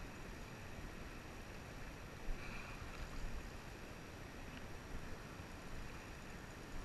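Steady rush of a shallow trout stream with water sloshing around a wading angler's legs, and a brief louder splash a little over two seconds in.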